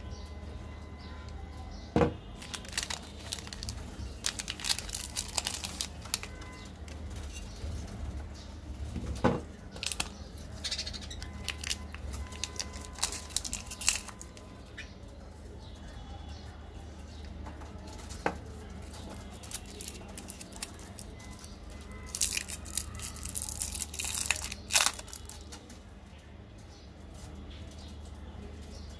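Plastic candy wrappers being crinkled and torn open by hand: irregular crackling with a few sharp snaps, busiest near the end.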